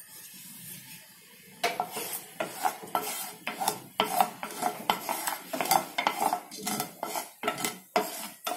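Mustard seeds spluttering in hot oil in a frying pan, the tempering for a dal: quiet at first, then many sharp, irregular pops starting about a second and a half in.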